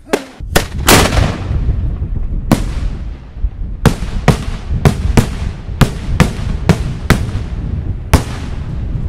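Italian aerial fireworks shells bursting in a series of sharp bangs over a steady low rumble. The loudest bang comes about a second in, and from about four seconds on the bangs come quickly, roughly three a second.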